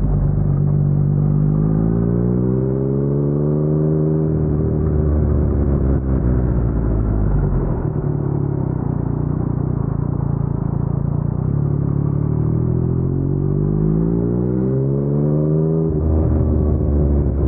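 Yamaha MT-09 three-cylinder engine through an Akrapovic full-system exhaust, with its pitch rising twice under acceleration. The second rise drops off sharply near the end as the throttle closes or a gear changes.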